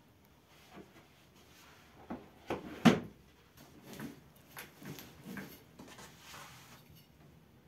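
A few sharp wooden knocks, the loudest about three seconds in, as dough and a long thin wooden rolling pin are handled on a wooden pastry board. Softer knocks and rubbing follow as the rolling pin works the dough into a flat round.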